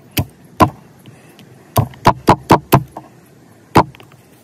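Skachet hatchet-knife chopping small sticks against a wooden log: sharp chops, two, then a quick run of five about two seconds in, then one more near the end.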